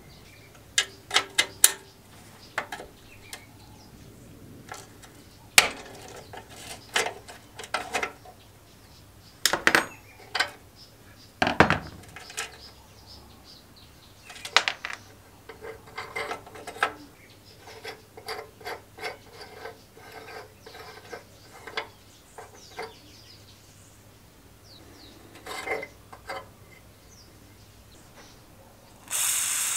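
Small rusty steel lawnmower parts clicking and clinking as they are handled and taken apart by hand, with an irregular run of sharp clicks and one heavier clunk about halfway through. Near the very end an aerosol can starts hissing as it sprays.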